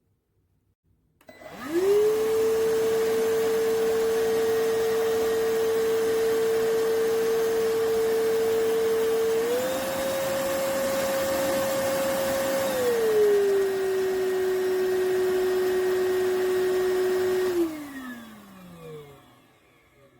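Cordless stick vacuum motor starting with a quick rising whine and running steadily. About halfway through it steps up to a higher pitch, then a few seconds later settles at a lower pitch. Near the end it is switched off and winds down with a falling whine.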